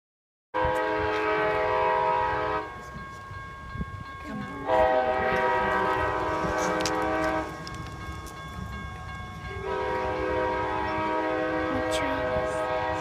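Amtrak passenger locomotive's air horn sounding three long blasts, a chord of steady tones with short gaps between, over the low rumble of the approaching train; the horn is blown as the warning for a grade crossing.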